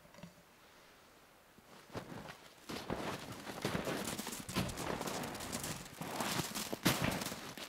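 Footsteps crunching through snow, starting about two and a half seconds in and going on as a quick, irregular run of crunches.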